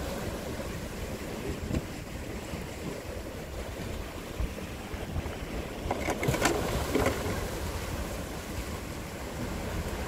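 Small sea waves washing over shoreline rocks, with wind buffeting the microphone as a low rumble; the wash swells louder for a moment about six seconds in.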